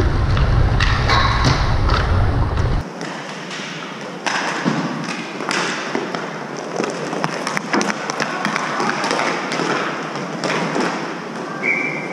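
Roller hockey play: repeated knocks, taps and thuds of sticks and puck over the rolling noise of inline skates on the plastic rink floor. A heavy low rumble on the microphone cuts off suddenly about three seconds in.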